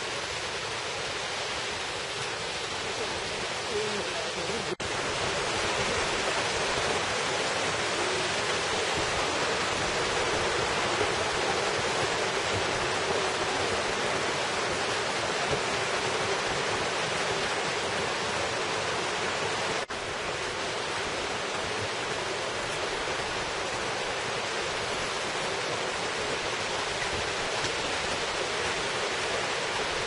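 Rocky mountain stream rushing, a steady even sound of water broken twice by a momentary dropout.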